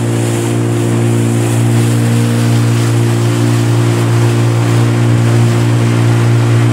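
Outboard motor of a small aluminium boat (a tinny) running steadily under way at cruising speed.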